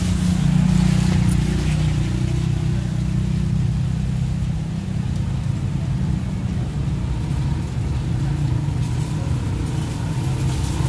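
Steady low engine rumble with a constant hum, a little stronger in the first couple of seconds.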